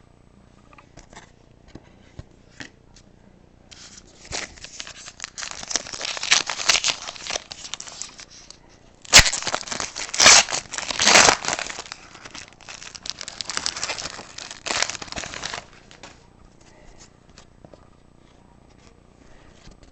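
Trading-card pack wrapper being torn open and crinkled by hand, an irregular crackling rustle that starts about four seconds in, peaks in the middle with a sharp snap, and stops a few seconds before the end.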